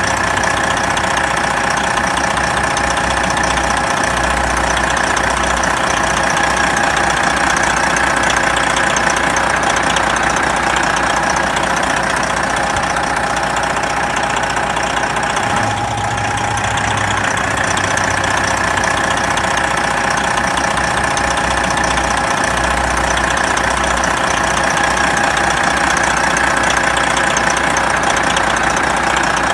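Big truck diesel engine idling steadily.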